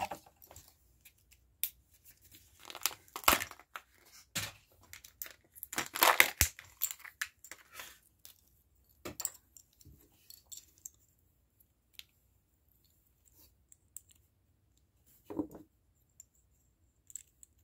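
Kinder Joy egg's plastic wrapper being torn and crinkled by hand, in scattered short bursts with a few sharp clicks, thinning out over the second half.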